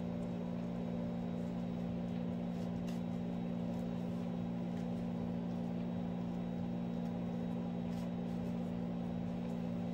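Steady low mechanical hum with an even, unchanging pitch, and a few faint clicks.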